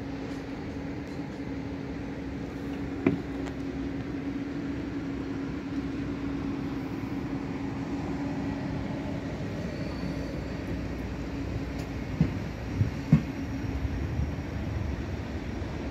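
Deutsche Bahn Intercity train, its control car leading, rolling past along the platform with a steady rumble and hum. A sharp knock sounds about three seconds in, and three more come close together near the twelve-second mark.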